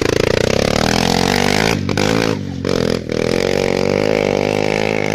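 Motorcycle engine running loud and close, its pitch wavering slightly as it is revved, with a few brief breaks near the middle.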